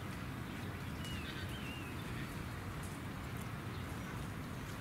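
Steady outdoor background rumble with a short wavering bird chirp about a second in and a few faint clicks.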